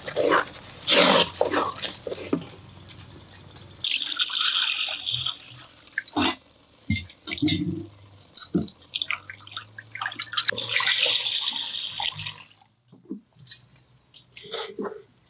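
Wooden spatula scraping and stirring thick fish curry in a clay pot, then water poured and splashing into the pot in two pours, the second longer. Scattered knocks and clinks of clay and ceramic pots in between.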